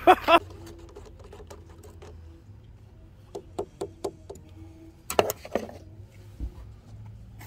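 Scattered short clicks and knocks, with a stronger cluster about five seconds in, from a wooden folding rule being handled in and against a paper coffee cup on a van's bumper.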